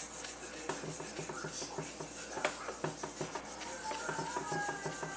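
A coffee filter wetted with surface purifier rubbed back and forth over a CPU's metal lid to clean off the last of the thermal compound: a run of quick scratchy strokes and small ticks.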